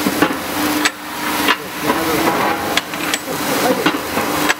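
Horizontal CNC induction hardening machine running while it heats a steel shaft: a hum that starts and stops over a steady hiss, with sharp metallic clicks about once a second.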